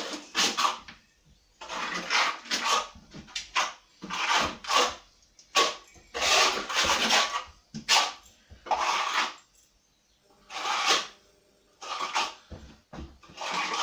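Steel plastering trowel sweeping wet Thistle Multi-Finish skim plaster across a wall: a series of irregular scraping strokes, about a dozen, with short pauses between them.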